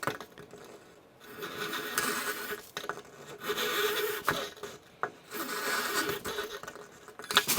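Hand file rasping back and forth on the edge of a fiberglass fairing to take it down: three long strokes with a few short scrapes between them.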